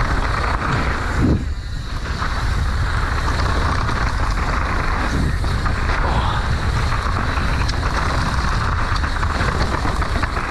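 Mountain bike descending a damp dirt trail: steady rush of wind buffeting the microphone, with the rolling noise of the tyres on tacky dirt.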